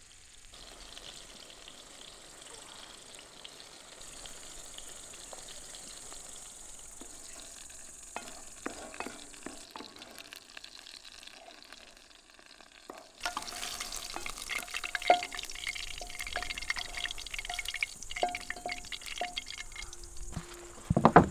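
Food sizzling and crackling on a charcoal grill grate, starting loudly about two-thirds of the way through after a quieter steady hiss, with a short note repeating about twice a second over it and a loud thump near the end.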